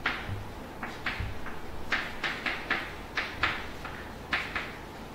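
Chalk writing on a blackboard: short taps and scrapes in irregular clusters, a few each second, as letters and symbols are drawn.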